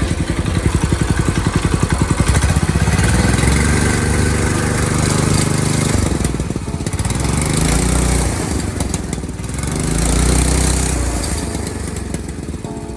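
Minibike's small engine, fitted with a newly installed torque converter, running and being revved: the pitch climbs and falls back about three times, rising near the start, again around eight seconds in and once more near ten seconds, then settling lower toward the end.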